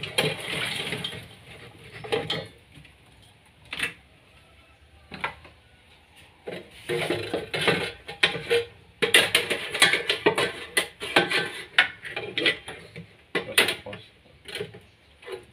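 Metal kettle of a small popcorn machine clattering as it is tipped and its handle worked: scattered clicks and knocks, then a dense run of rattling in the second half.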